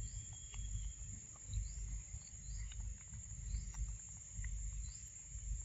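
Macaques chewing and smacking on papaya flesh: many small wet clicks over irregular low thumps and rumble. A steady high insect drone and a few short rising bird chirps sound behind.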